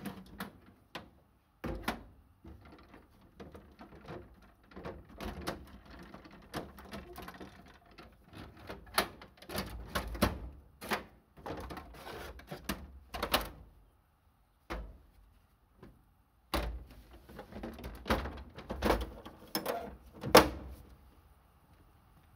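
Collapsible Zarges aluminium transport box being folded flat by hand: a string of irregular metallic clanks, knocks and rattles from its panels, hinges and handles, with the loudest knock near the end.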